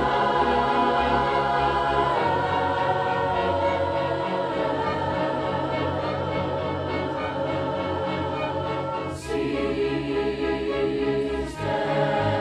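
Choral music: a choir singing held chords, the music shifting about two seconds in, again at about nine seconds and near the end.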